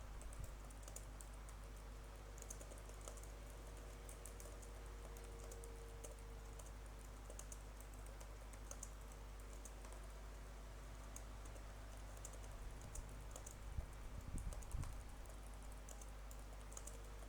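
Typing on a computer keyboard covered with a cloth: a fast, irregular run of faint, muffled key clicks over a steady low hum, with a few louder knocks near the end.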